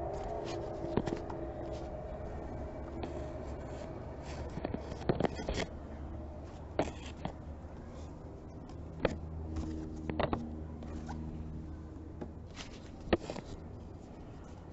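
Canvas paintings being handled and set down, with scattered light knocks, taps and scraping, over a steady low hum of street traffic.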